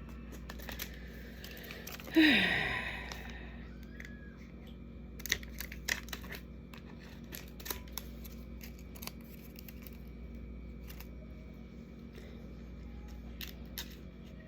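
Light crinkling, rustling and scattered clicks of plastic and paper being handled while goodie bags are put together, over a steady low hum. About two seconds in comes one loud, brief sound that falls in pitch.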